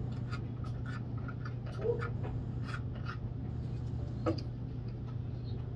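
Water dripping from a tilted plastic gold pan into a tub of muddy water, with small irregular ticks and scratches from a plastic snuffer bottle worked against the pan. A sharper click comes about four seconds in, over a steady low hum.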